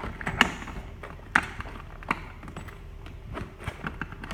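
Sharp taps and clicks of makeup products and the makeup case's compartments being handled, a scattered series of small knocks at uneven intervals, the loudest about a second and a half in.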